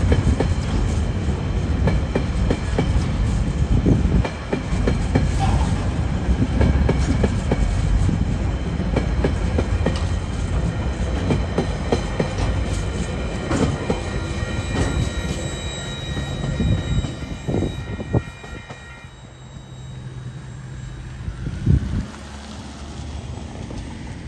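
Freight train's container flat wagons rolling past, with wheels clacking over the rail joints and a steady high-pitched wheel squeal. The noise falls away as the last wagon goes by about three quarters of the way through, and a single sharp knock comes near the end.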